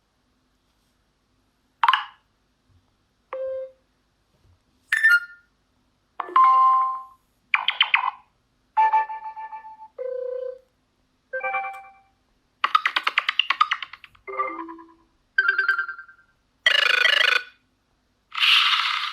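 CUBOT X20 Pro smartphone playing its built-in alert tones one after another: about thirteen different short chimes and jingles, each a second or less, with brief silences between.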